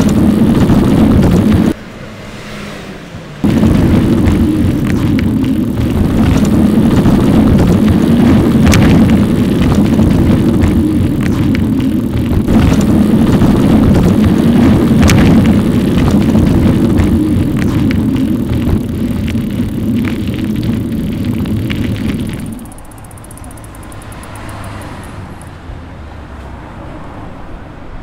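Wind and road noise on the microphone of a camera riding on an e-bike, sped up about thirteen times into a dense, loud rumble. It drops away briefly about two seconds in and falls quieter for the last five seconds.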